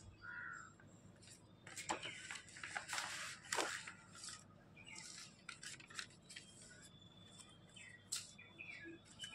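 Sheets of paper and card being handled and laid onto a pile, rustling and sliding in a few short rustles, loudest between about two and four seconds in. A bird chirps faintly now and then.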